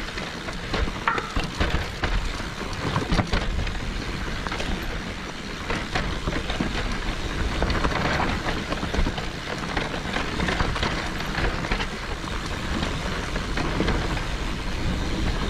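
Mountain bike riding over a dirt and rock trail: tyres crunching on loose ground, with irregular clicks and knocks from the bike and a low rumble on the microphone.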